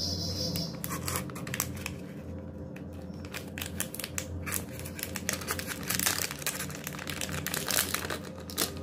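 Foil and clear plastic packaging bags crinkling as they are handled and opened by hand, an irregular stream of crackles that grows denser about halfway through and again near the end.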